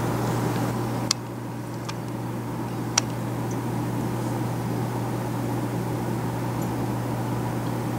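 Steady low mechanical hum with a hiss from aquarium equipment running, heard close to the tank, with two sharp clicks about one and three seconds in.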